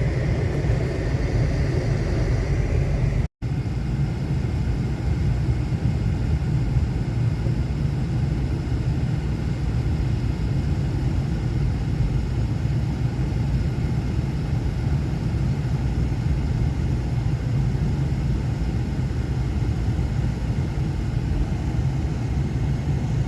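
Steady low rumble with no clear events in it, cut off abruptly for a split second about three seconds in.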